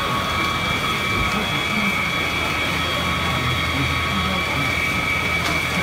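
Fire appliance engine and pump running steadily at a fireground, a low drone under a constant high whine.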